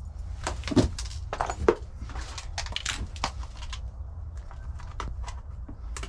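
KMC bicycle chain clinking and rattling as it is handled and fitted. A dense run of sharp metallic clicks comes in the first few seconds, then sparser clicks, over a steady low hum.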